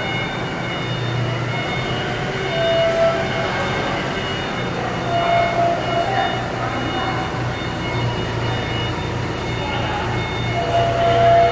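Steady machinery noise with a low hum and short higher-pitched whines that come and go.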